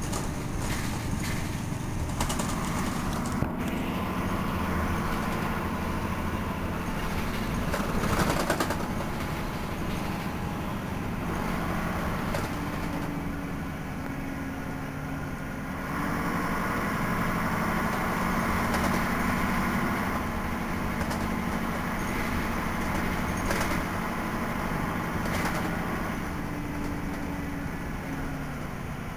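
Berliet PR100 MI bus's MIPS diesel engine running steadily, growing a little louder about halfway through. A few knocks come over it, the loudest about eight seconds in.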